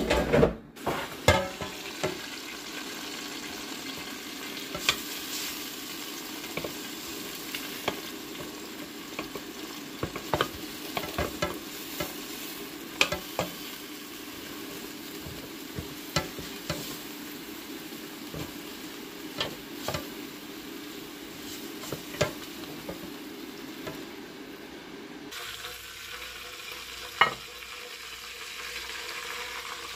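Air fryer running with a steady fan hum while chicken thighs sizzle in the basket, and metal tongs click and scrape against the basket many times as the pieces are turned. The hum drops away near the end, followed by one loud knock.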